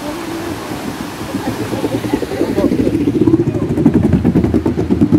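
Rushing river noise, then a skateboard rolling along a wooden plank boardwalk, its wheels clattering rapidly over the plank joints and growing louder as it comes closer.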